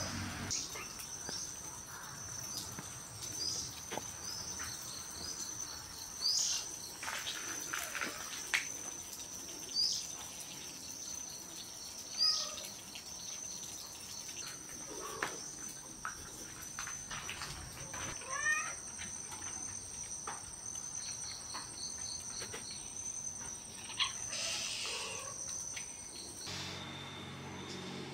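Steady high-pitched drone of insects calling, with two held tones, the higher of which stops shortly before the end. Short rising chirps and a few brief calls sound over it now and then.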